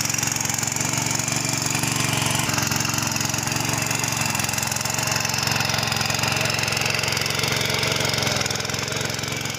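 Mini power tiller's small engine running steadily under load as its rotary tines churn through wet, muddy soil.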